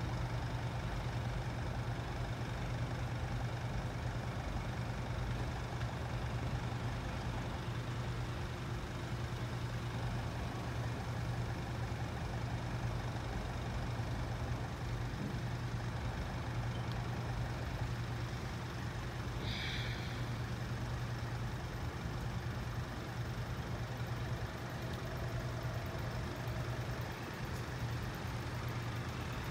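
Steady low engine rumble and hum, as of road vehicles idling at the closed level crossing, with one brief high-pitched chirp about twenty seconds in.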